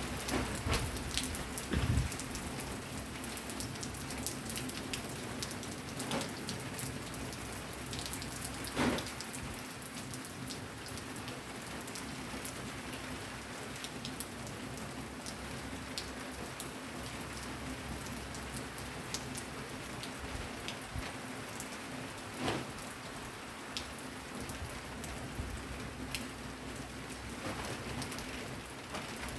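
Steady rain falling, with many close drip ticks and a few louder single drop knocks scattered through.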